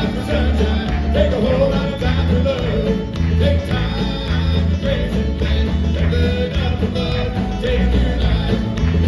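Live bluegrass band playing an instrumental break: a fiddle carries a sliding melody over banjo, acoustic guitar, electric bass and drums, with the bass and drums keeping a steady pulse.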